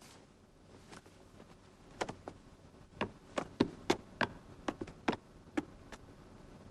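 A series of about a dozen sharp, unevenly spaced knocks, starting about two seconds in and stopping near the six-second mark.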